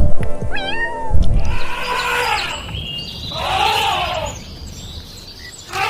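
Domestic cat meowing: two drawn-out meows about a second and a half apart, with a short rising call before them and another meow starting at the end.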